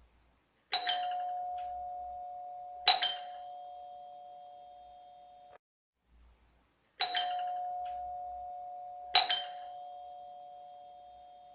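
Doorbell chime ringing two struck notes, ding-dong, each ringing on and fading slowly before cutting off abruptly. The pair sounds twice, about six seconds apart, and the second strike of each pair is the louder.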